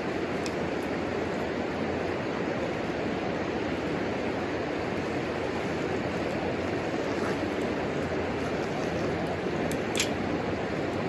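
Wood burning in a homemade wood stove, with a steady rushing noise and a faint crackle now and then. One sharper pop comes about ten seconds in.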